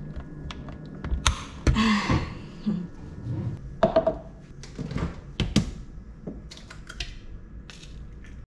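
Kitchen handling noises: a run of clicks, taps and thunks as a sandwich maker's lid is forced down and clamped shut over a filled toast, then a cup and eggs handled on the counter by the stove.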